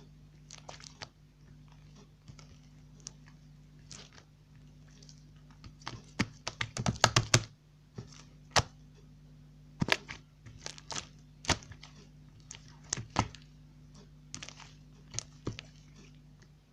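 Slime being squeezed and kneaded by hand, giving irregular sharp clicks and pops, with a dense flurry about six to seven and a half seconds in.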